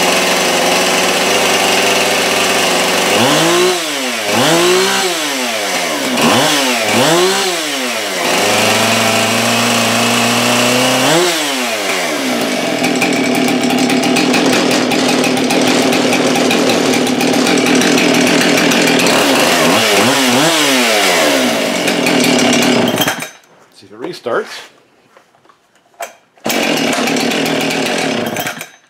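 Husqvarna 576XP two-stroke chainsaw running after a repair. It is revved in several quick blips that rise and fall, settles back, then holds a steady higher speed for about ten seconds and cuts off suddenly about 23 seconds in. Handling clicks and a brief loud burst follow near the end.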